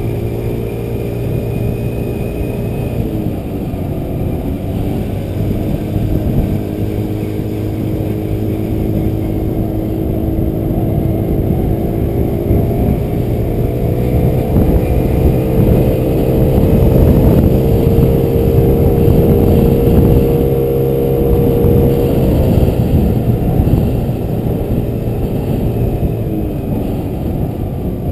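Motor scooter's engine droning as it rides along, over a rumble of wind on the microphone. The engine note dips about three seconds in, climbs and grows louder from about halfway, and drops back near the end.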